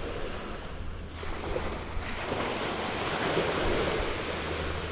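Recorded ocean waves washing on a shore: a steady rush of surf that ebbs about a second in and swells again as the next wave comes in.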